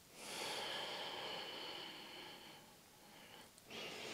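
A woman's audible breathing, faint: one long breath of about two and a half seconds, a pause of about a second, then the next breath starting near the end.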